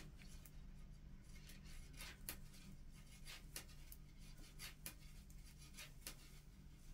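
Faint, irregular clicking and rubbing of metal circular knitting needles and yarn while stitches are purled, over a steady low hum.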